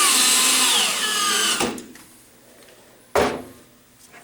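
Power drill driving in the screws that fasten the latch bolt to the door edge: the motor whine holds steady, then slides down in pitch and stops about a second and a half in. A single sharp knock follows about three seconds in.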